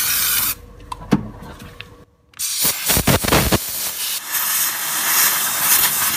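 Aerosol brake cleaner spraying briefly at the start, then a few light clicks. After a short pause, a compressed-air blow gun hisses for about three and a half seconds in uneven gusts, blowing the cleaner and dirt off the brake fluid reservoir cap.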